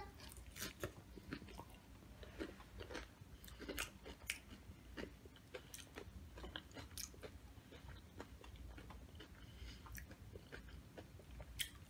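Faint, close-miked chewing of Doritos nachos: irregular soft crunches and mouth clicks as the chips are bitten and chewed.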